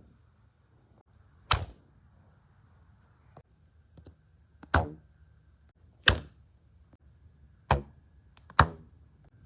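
Repeated twangs: five sharp plucked strikes at uneven gaps of one to three seconds, each ringing out briefly, with a few faint taps between them.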